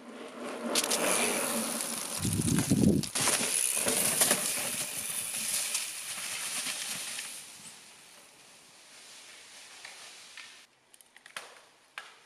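Pivot Trail 429 mountain bike riding past close by, knobby tyres rolling and crunching over dry leaves, with a low thump about two seconds in. The sound fades after about seven seconds, and a few sharp clicks come near the end.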